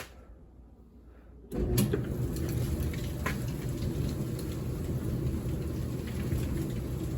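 Kenmore 700 Series dryer starting up about a second and a half in and running, its drum turning with a steady low rumble and no metallic scraping. The scraping is cured: the drum support wheels and belt tensioner have been cleaned of wrapped hair, and it runs smooth.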